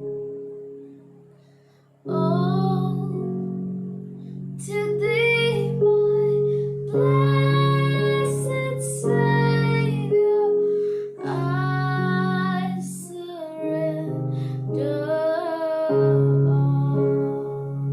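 Worship music: a singer's voice with long held, sliding notes over sustained instrumental chords. The music dips low for the first two seconds, then the singing comes in.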